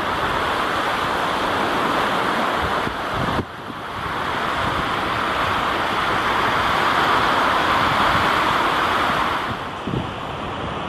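Wind-driven surf breaking on a lakeshore, a steady roaring wash, with strong wind buffeting the microphone. It drops off sharply about three and a half seconds in, swells back up, and falls away again near the end.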